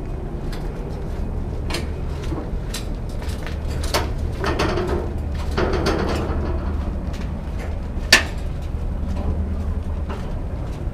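Footsteps, scuffs and knocks of people crawling along a metal roof framework, over a steady low rumble; one sharp knock stands out about eight seconds in.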